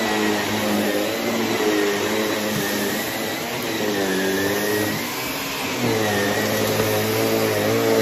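Shark upright vacuum cleaner running as it is pushed over a rug, its motor whine and humming tones wavering up and down in pitch as the head moves, with a slight dip in loudness about five seconds in.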